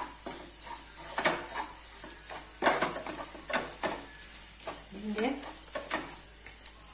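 A spoon stirring and scraping in a pan of onion-tomato masala frying in oil, with irregular knocks against the pan over a steady sizzle. The masala and spice powders are being sautéed until their raw smell cooks off.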